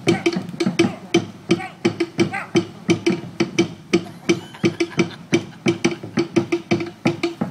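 Fast Polynesian drumming for a fire knife dance: sharp, evenly driving strikes at about five a second on one repeated low pitch.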